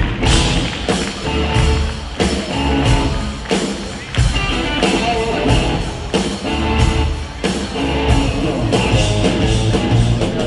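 Live rock band playing electric guitars over a steady drum beat.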